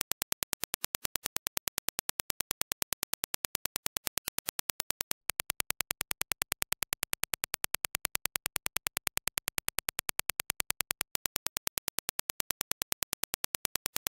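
A steady train of sharp single clicks, several a second: test impulses played first as the reference Dirac impulse. After a short break about five seconds in, the same impulse train is played as reproduced by the AKG K812 open-back headphones and picked up on a dummy-head measurement microphone. It switches back to the reference impulse near the end.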